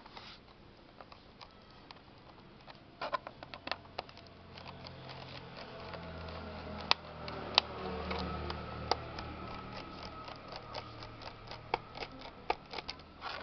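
Scattered small clicks and taps of a laptop's plastic bottom cover being worked loose and handled, with two sharper clicks about seven seconds in. A low hum swells in the middle and fades again.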